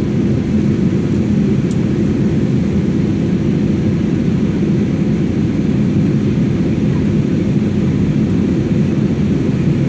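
Steady cabin noise of a jet airliner in flight, heard from inside the cabin: an even, low rumble of the engines and the air rushing past the fuselage.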